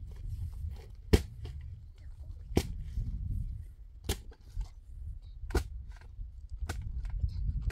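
Five sharp, evenly spaced knocks, about one every second and a half, over a steady low rumble.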